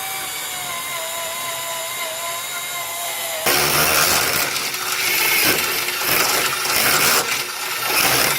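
Power drill making a hole in sheet-metal car body panel for a hood pin. The motor whines steadily for about three and a half seconds, then the bit bites into the metal and it turns into a loud, rough grinding noise until the drill stops abruptly at the end.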